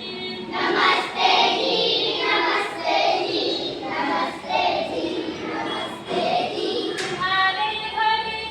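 Children's voices singing a song, with several long held notes near the end.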